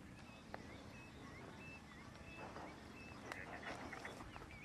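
Faint bird calls: short wavering whistled notes repeated about twice a second, with a few light clicks.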